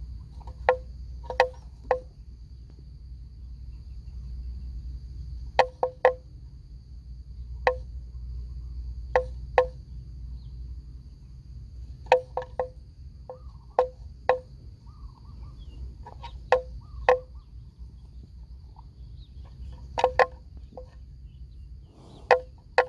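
Sharp, hollow knocks at irregular intervals, singly and in quick pairs, over a low steady rumble and a faint thin high-pitched whine.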